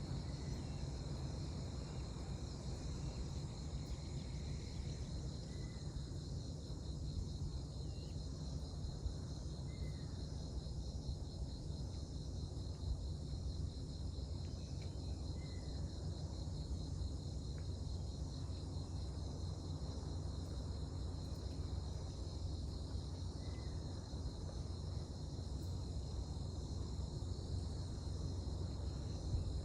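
Crickets trilling steadily in a continuous high, finely pulsing chirr, over a low steady rumble, with faint short chirps every few seconds.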